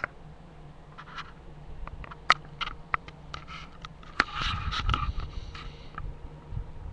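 Handling noise from a webcam being moved about: scattered sharp clicks and knocks, with a rustling, scraping burst about four seconds in.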